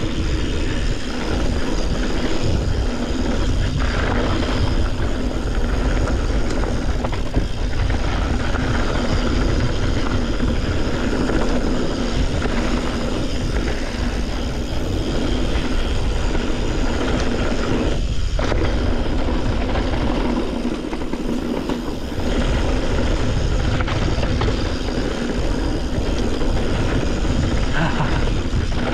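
Steady wind rush buffeting the camera microphone, with the rumble and rattle of a mountain bike riding down a dirt trail.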